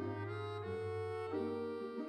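Background music: held chords over a steady bass note, the chords changing every half second or so.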